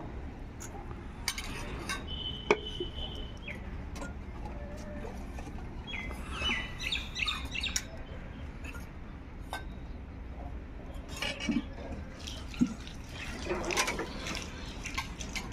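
Stainless steel plate and ladle clinking as food is served, with two sharper knocks, about two and a half seconds in and near the end. Birds chirp in the background.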